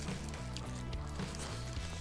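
Background music with sustained notes and a few light percussive knocks.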